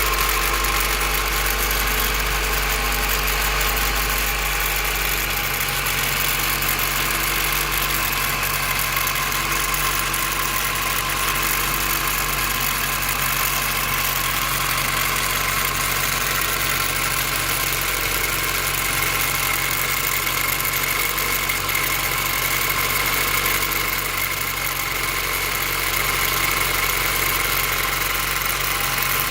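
Honda B16 four-cylinder engine idling steadily after a cold start, with a rattle that the owner traces to the distributor. A new distributor, checked lost motion assemblies and a valve lash adjustment have not cured it.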